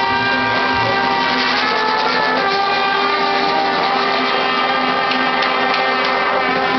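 A traditional jazz band with clarinet, two trumpets and banjo playing together. From about two seconds in, the horns hold long steady notes, as on the sustained closing chord of a tune.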